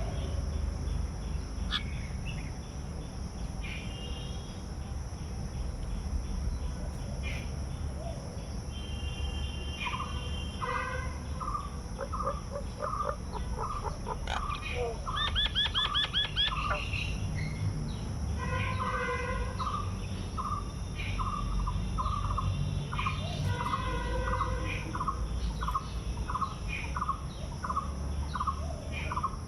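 Birds calling and chirping over a steady low rumble. From about a third of the way in, one bird repeats a short call about once a second, with a quick run of higher rapid notes near the middle.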